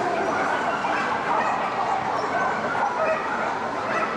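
Many dogs yipping and barking over one another against a steady background hubbub.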